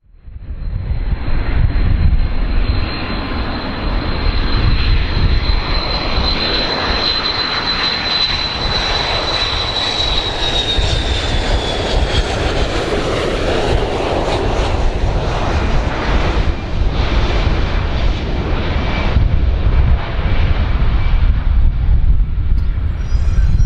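Boeing 727 jet engines on landing approach: loud, steady engine noise with a deep rumble and a high whine that drops slightly in pitch about ten seconds in as the jet passes.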